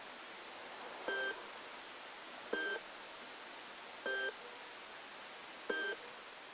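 Small stepping motor fitted into an N-gauge TOMIX electric turnout machine giving five short, high electronic beeps, evenly spaced about a second and a half apart, over a steady hiss.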